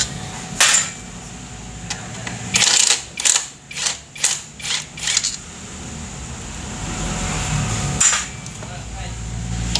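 Metal tool-and-part clinks and knocks from fitting a motorcycle exhaust pipe: one tap about half a second in, a quick run of sharp taps a few seconds in, and one more after about eight seconds, over a low steady hum.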